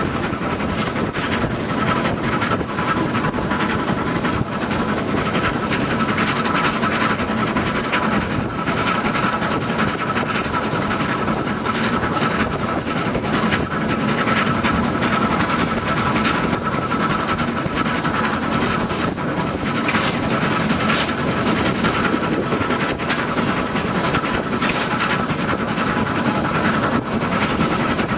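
Vehicle driving along a gravel track, heard through an open door: a steady engine drone and road noise with constant rattling and clicking.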